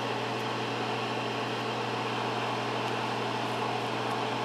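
Steady whir of a small bench smoke eater (fume extractor) fan, with a constant low electric hum under it.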